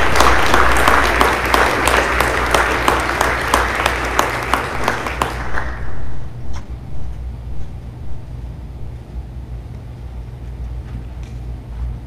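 Small audience applauding for about six seconds, the claps thinning out and stopping. Afterwards only a steady low hum with a few faint taps remains.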